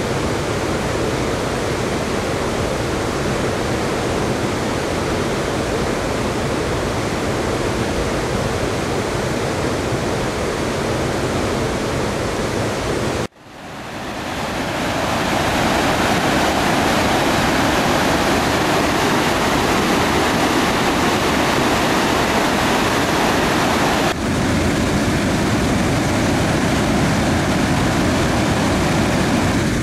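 Torrent of floodwater rushing out of the Ladybower Reservoir plughole spillway's arched stone outlet tunnel into the basin below, a steady loud rush. The reservoir is full and overflowing down the spillway. About halfway through the sound drops out for an instant and comes back louder and brighter.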